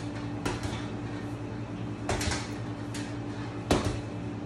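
Boxing gloves striking a heavy punching bag: a punch about half a second in, two quick punches around two seconds, and a harder one near the end, over a steady low hum.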